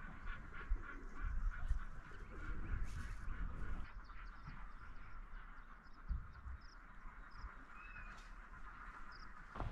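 A flock of birds calling steadily, with a few short high chirps over the top.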